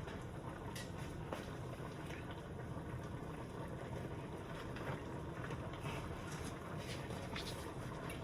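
Faint light taps and rustles of puff pastry being handled on a counter, a few scattered through, over a steady low background hiss.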